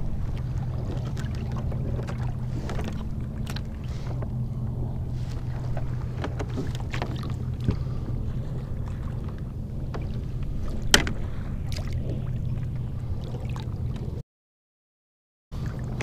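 Water lapping against a fishing kayak's hull over a steady low hum, with a few sharp knocks, the loudest about eleven seconds in. The sound cuts out completely for about a second near the end.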